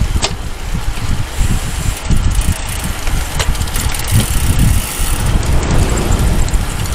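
Wind buffeting the microphone of a camera riding on a bicycle at race speed, a loud, uneven low rumble with a few small clicks.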